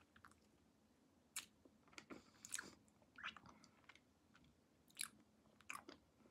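Faint chewing of a Toxic Waste sour hard candy in the mouth, with a few scattered crunches and clicks.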